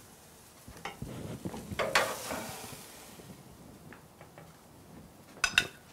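Metal grill tongs handling a beef steak: a brief sizzle and scrape as it comes off the hot grill grate about two seconds in, then sharp clicks of the tongs against a ceramic plate near the end.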